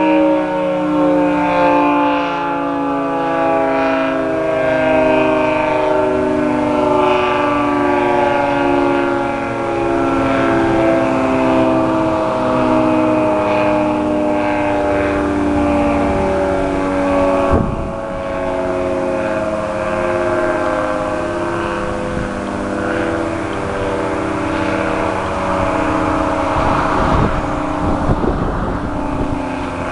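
Federal Signal 3T22 outdoor warning siren sounding a chord of several tones that slowly falls in pitch as it winds down, the lower tones swelling and fading in a regular pattern. A single sharp knock is heard just past halfway.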